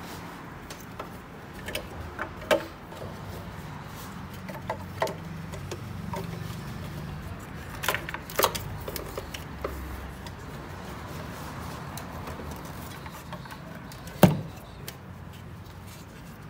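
Scattered clicks and knocks of hand tools and engine parts being handled during engine reassembly, over a low steady hum; the loudest knock comes near the end.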